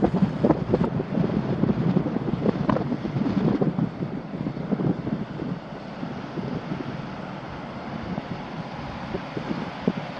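Wind buffeting the microphone in uneven gusts, heavier in the first few seconds and then settling to a steadier rumble.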